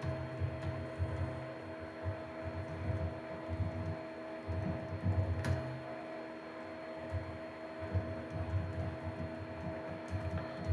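A steady electrical hum with a few constant tones, under irregular soft thumps of typing on a computer keyboard, with one sharper click about halfway through.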